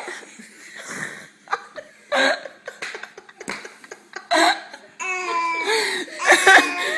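A baby laughing in short separate bursts, then more continuous laughter from about five seconds in.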